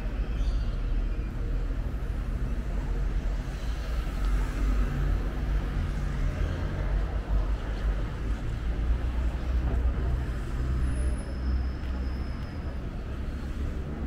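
Street traffic: motor vehicles running along the road, a steady low rumble with engine hum that swells and fades.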